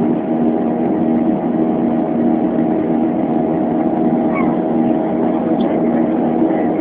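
Jet airliner's turbofan engines droning steadily during the climb after take-off, heard from inside the passenger cabin as an even roar with a steady hum.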